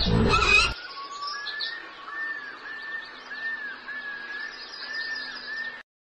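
Bird-like chirping from the Animal 4D+ app's sound effects, played through a phone speaker: a thin, arched whistle repeated about every half second. It follows a brief louder sound in the first moment and cuts off abruptly just before the end.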